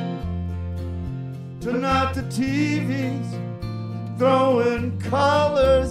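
Live band music: a man singing over a strummed Gibson acoustic guitar and an electric bass holding long low notes. The first second and a half is instrumental before the voice comes in, then sings two phrases.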